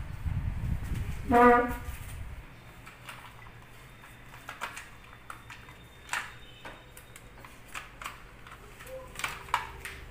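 Scattered light clicks and rustles of plastic packaging and a hard plastic toy truck body being handled. The loudest sound is a single short pitched sound, like a brief voice, about a second and a half in, over a low rumble in the first two seconds.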